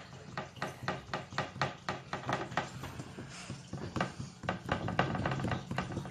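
Slime being poked and squished by hand: a rapid run of small wet clicks and pops, several a second, over a steady low hum.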